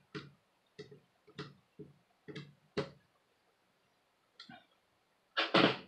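Short scraping and rustling noises close to the microphone, roughly twice a second, while a screw is worked into a laptop hinge bracket, with a louder scrape near the end.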